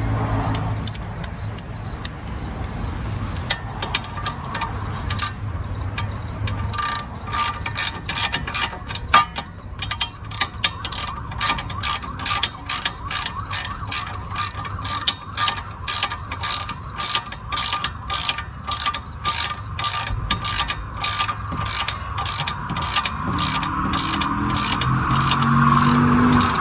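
Hand socket ratchet clicking through a long run of short, evenly spaced strokes while a bolt is tightened, about two to three clicks a second.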